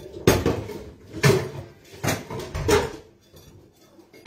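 Metal cooking pots clanking against each other and the shelf as they are lifted down, about four knocks in three seconds, each ringing briefly.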